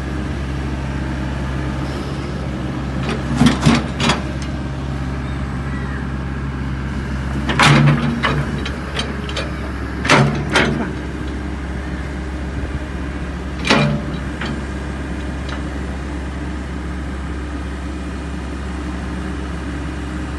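Takeuchi TB285 tracked excavator's diesel engine running at a steady speed while the boom and bucket are worked. A handful of short, sharp metallic clanks from the arm and machine sound over it, the loudest about eight and ten seconds in.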